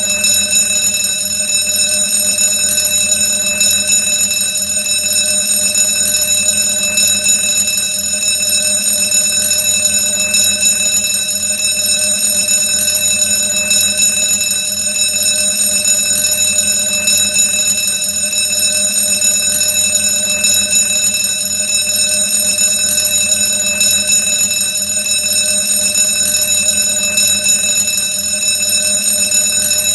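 Old-fashioned alarm bell ringing loudly and without a break, one steady metallic ring that neither pauses nor changes.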